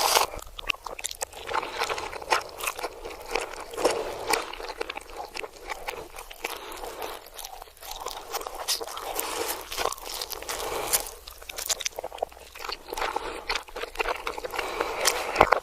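Close-up crunching and chewing of crisp food, a dense run of crackly clicks, played backwards.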